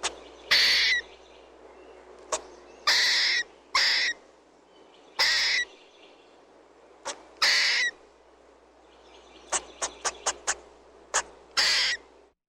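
Squirrel chirping: about six calls of half a second each, spaced a second or two apart, with single short chirps between them and a quick run of five chirps near the end.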